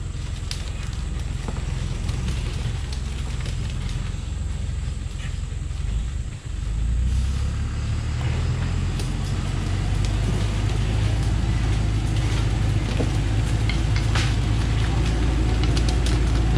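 Thaco Forland truck's diesel engine running under load as the truck reverses slowly over a track littered with cut branches and bark, growing louder after about seven seconds. Short crackling snaps of sticks and debris under the tyres run over the engine.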